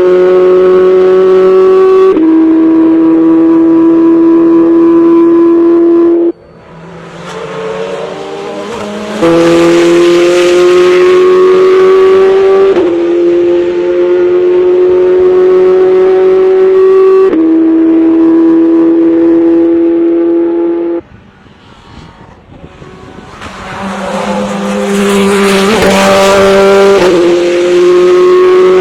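Chevrolet Corvette C8.R race car's flat-plane-crank V8 at high revs on track, holding long pulls with upshifts where the pitch steps down. Twice the engine note drops away suddenly, then builds back up with rising revs.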